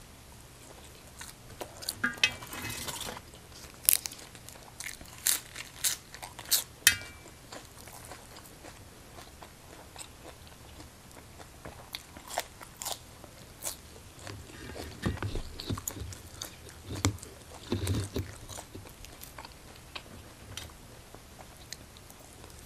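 Close-miked eating sounds: a person chewing and crunching food, with a run of sharp crunchy bites in the first several seconds, more crunches around the middle, and chewing in between.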